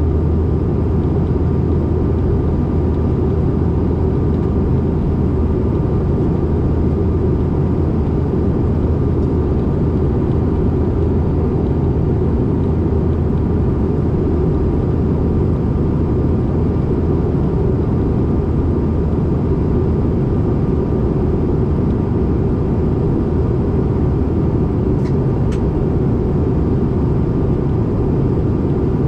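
Steady cabin noise of a CRJ-550 regional jet in flight, heard inside the cabin: a deep, even roar of airflow and the rear-mounted turbofan engines with a faint steady whine above it. Two faint ticks sound near the end.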